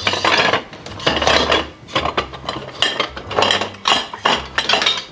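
Kitchen utensils scraping and clattering against dishes and pans, in a string of short strokes, over a steady low hum.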